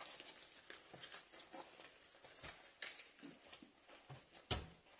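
Faint handling noises of a ring light being drawn out of its soft fabric carry bag: scattered light clicks, taps and rustles, with one louder knock about four and a half seconds in.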